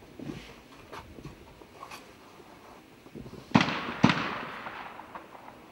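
Two shotgun shots about half a second apart, each with a ringing echo, about three and a half seconds in. This is a trap shooter firing both barrels at one clay target. A few faint pops come before them.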